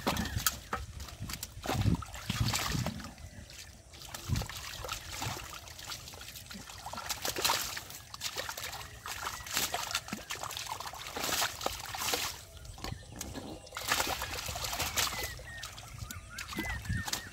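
Shallow muddy water splashing and sloshing in irregular bursts as hands grab and wrestle a struggling catfish in it.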